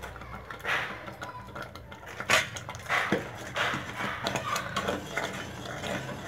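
A metal ladle stirring thick saag in an open aluminium pressure cooker: irregular scrapes and knocks against the pot, the sharpest about two seconds in.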